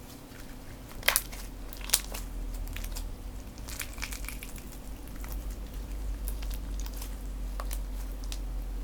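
Slime being squished and pressed in the hands, making small crackly pops and clicks, with two sharper, louder pops about one and two seconds in.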